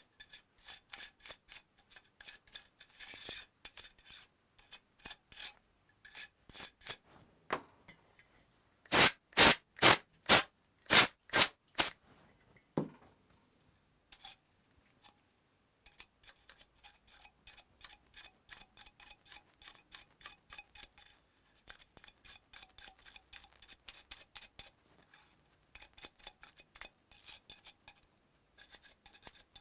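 A brush scrubbing dust off a used PS4 cooling fan in quick, short strokes, with a run of louder strokes around the middle, a brief pause, then lighter, quicker strokes.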